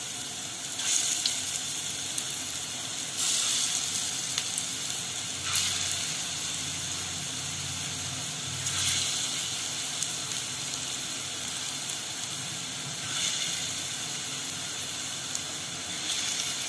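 Balls of bottle-gourd kofta batter deep-frying in hot mustard oil, a steady sizzle that swells louder every few seconds as fresh balls of batter are dropped into the oil.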